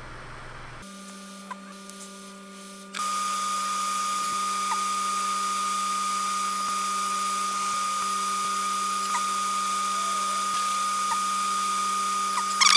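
A hot air rework station blows steadily while it heats flux and solder to lift a small chip off a laptop logic board. The air comes on about three seconds in as a steady hiss with a high whine and a low hum. A brief sharper sound comes right at the end.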